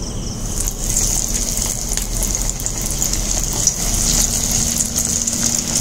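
Bhetki fish fingers going into hot oil to deep-fry: the oil sizzles and crackles with a steady hiss that starts about a second in.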